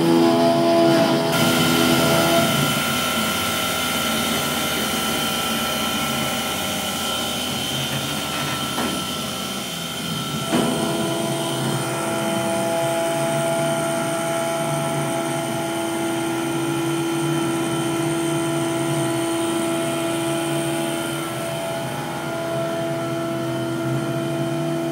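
Sieg KX3S CNC milling machine running, its spindle whining steadily at about 5000 rpm while an end mill cuts an aluminium block. The pitch of the tones shifts about ten seconds in.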